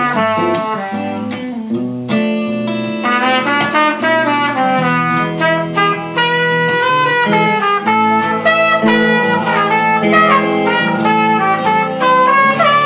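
A live band playing an instrumental passage: a trumpet playing a melody over guitar, bass and drums.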